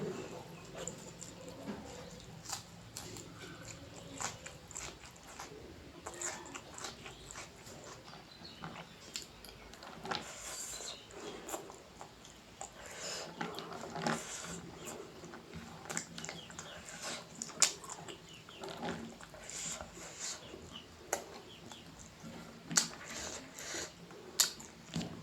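Eating sounds of a person chewing rice and noodles close to the microphone: irregular chewing, lip smacks and small clicks, with a few louder smacks near the end.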